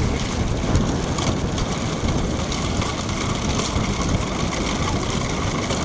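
Steady vehicle engine running with heavy wind rumble on the microphone while moving at speed.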